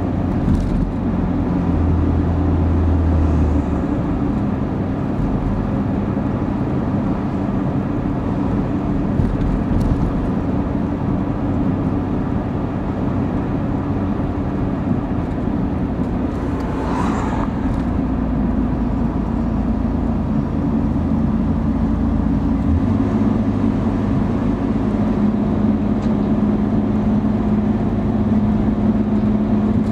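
Car engine and tyre noise heard from inside the cabin while driving, a steady drone. The engine note shifts about three seconds in and rises again about two-thirds of the way through, and a brief higher-pitched sound is heard a little past halfway.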